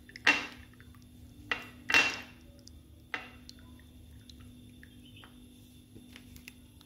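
Small glass bowl clinking as a red paste is stirred in it: four knocks against the glass, each with a short ring, the loudest near the start and about two seconds in.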